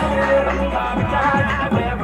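Dance music played over loudspeakers: a pop track with a thumping bass beat and a singing voice.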